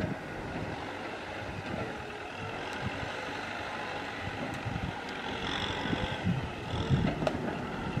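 Kubota M6040SU tractor's four-cylinder diesel engine running steadily under load as the tractor crawls up out of a rutted dip on a dirt track, a little louder in the second half.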